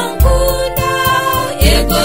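Gospel song: a sung melody over a steady drum beat with a deep bass hit about every second and a half.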